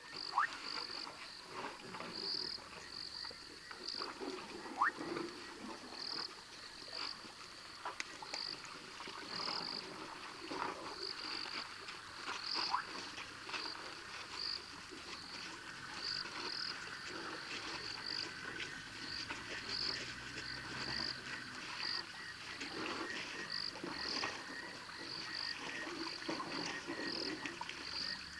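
A chorus of frogs calling: short high-pitched notes repeated irregularly, several every second, mixed with occasional sharp clicks and knocks.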